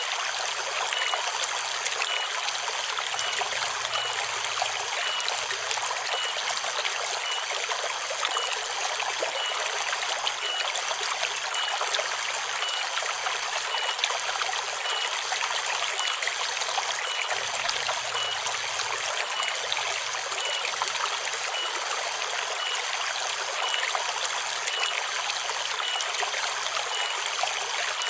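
Forest river babbling steadily, with a cicada's faint steady high song above the water. A faint short high pip repeats a little faster than once a second.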